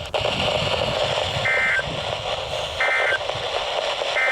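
Three short bursts of EAS/SAME end-of-message data tones from a NOAA Weather Radio broadcast, about a second and a half apart, over steady radio hiss: the digital signal that the severe thunderstorm warning message has ended.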